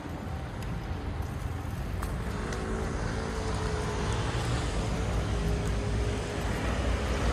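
Road traffic going by, a steady rumble that grows louder as a vehicle draws near, with a faint engine hum over it.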